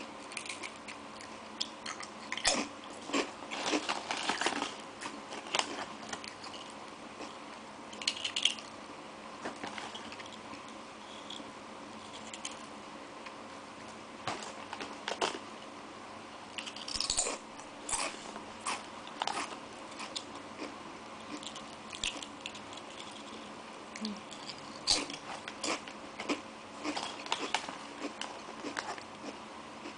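Crunching and chewing of Tongari Corn, crispy cone-shaped corn snacks, as irregular bursts of crackling bites with pauses between. A faint steady hum runs underneath.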